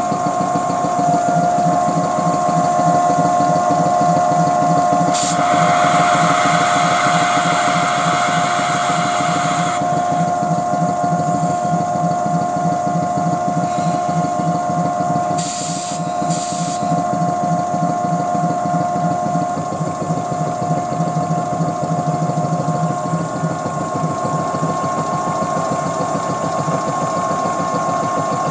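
Tobu 8000-series train's underfloor electric air compressor, the older D3-FR type, running steadily: a fast low chugging from the pistons under a steady motor whine. It hisses for several seconds about five seconds in, and twice more briefly around sixteen seconds.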